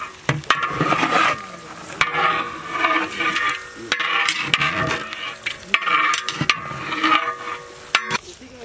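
Long metal ladle stirring and scraping chicken pieces around a large aluminium pot as they fry, with sizzling. The strokes come roughly once a second, with sharp clicks of metal on metal.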